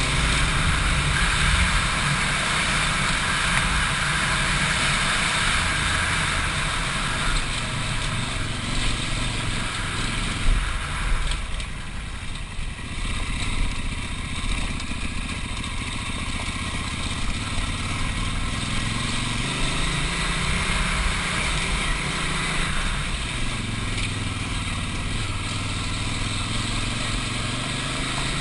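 Big adventure motorcycle's engine running while riding a dirt trail, with a steady rushing hiss over it. The engine eases off about halfway through, then pulls again.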